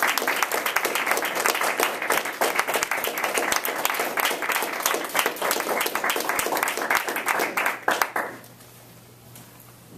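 Audience applauding with steady, dense clapping that stops about eight seconds in.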